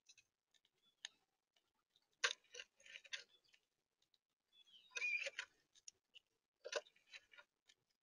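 A squirrel right at the microphone crunching food: irregular sharp clicks and crackles in three short clusters, about two, five and seven seconds in, with faint scattered ticks between.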